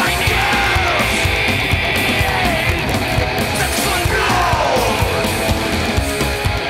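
Loud rock music with a heavy, driving beat and a singing voice whose pitch slides up and down.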